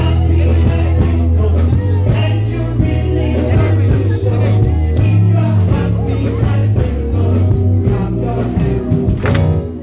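Live gospel music: a lead singer and backing vocalists with a band, played loud through PA speakers, with a strong, steady bass underneath.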